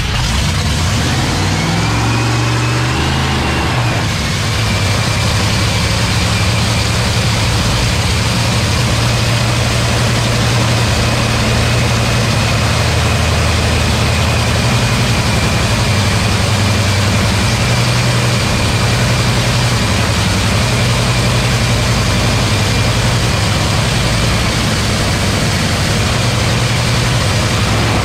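Supercharged nitromethane-burning Top Fuel dragster V8 idling steadily during a pit warm-up, with a steady high whine over the engine note.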